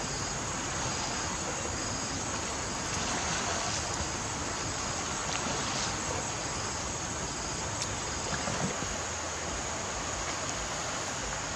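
Steady rushing outdoor noise, with a continuous high whine above it and a faint short chirp repeating about once a second.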